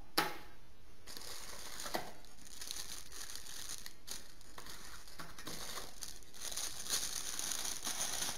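Clear plastic accessory bags crinkling and rustling as they are pulled out of a cardboard phone box, busiest near the end. A single sharp tap on the table comes just after the start.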